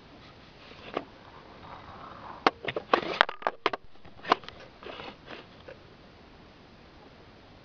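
Mother guinea pig licking and chewing at her newborn pup just after birth: a quick run of wet clicks and smacks, most of them between about two and four seconds in.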